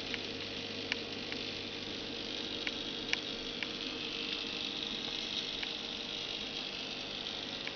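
Aquarium pump running with a steady hiss and a low hum, water bubbling, and scattered small clicks throughout.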